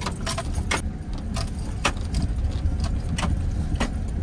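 Inside a 4x4 pickup's cab crawling slowly over rocks: a steady low rumble of engine and tyres, with the ignition keys jingling and clinking against the steering column at irregular moments, about every half second, as the truck rocks over the stones.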